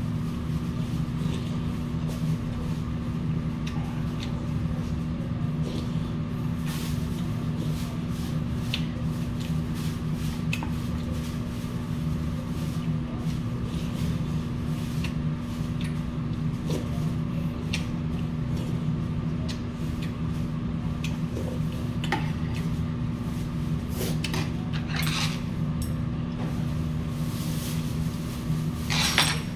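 Eating at the table: a metal spoon now and then clicks against brass bowls, with a louder clatter near the end, over a steady low hum.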